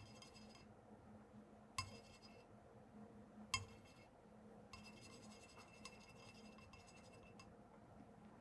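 Faint sounds of a watercolour brush mixing paint in a palette: three light clinks with a short ring, about two seconds apart, then a few seconds of soft scrubbing as the brush works the paint in the mixing well.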